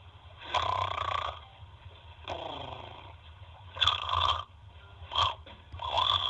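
A sleeping baby snoring, a rasping noise on each breath repeating about every second and a half, with louder and softer breaths alternating.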